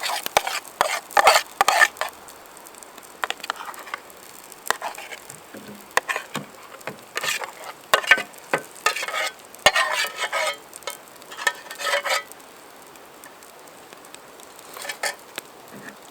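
A utensil stirring and scraping food in a British Army aluminium mess tin on a Firebox stove, in irregular bursts of scrapes and clinks with pauses between. Underneath runs a faint steady sizzle of the baked beans bubbling.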